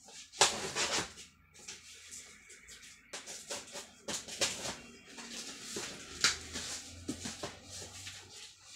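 A cardboard speaker carton being opened by hand: the carton and its packing tape rustle, scrape and knock irregularly, with a few louder tearing bursts.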